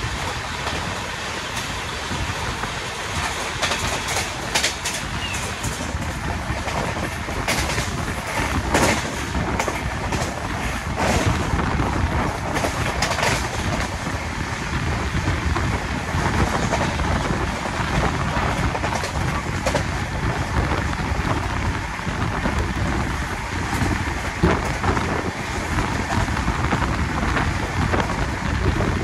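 Wind rushing over a phone's microphone held out of a fast-moving passenger train, over the rumble of the wheels on the track. Frequent sharp knocks and clatter in the first half, while a freight train of covered wagons passes close alongside on the next track.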